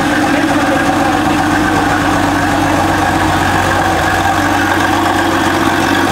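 Porsche 993 Carrera S's air-cooled flat-six engine idling steadily, heard from behind the car.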